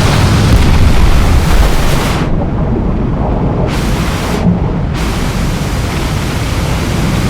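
Layered destruction sound effects: a loud, dense roar over a deep rumble, like the aftermath of a huge blast. Twice, about two seconds in and again about four seconds in, the sound turns muffled for about a second, then opens out to the full roar.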